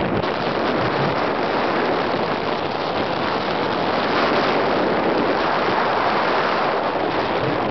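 Steady rushing noise of wind on the microphone of a camera carried by a skier moving downhill, mixed with skis scraping over packed snow.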